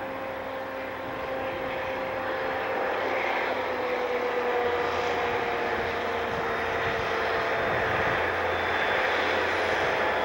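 Santa Fe diesel locomotives leading a freight train make a steady engine drone that grows louder as they approach. A deeper rumble joins about halfway through.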